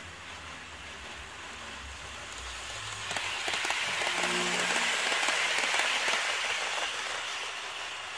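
HO-scale model train running past on sectional track: a hissing, clicking rattle of its wheels on the rails that builds from about two and a half seconds in, is loudest as it passes close, and eases off near the end.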